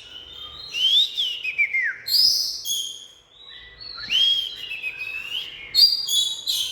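Oriental magpie-robin singing: varied whistled phrases of rising and falling slurred notes, with short pauses between them and a quick run of chirpy notes near the end.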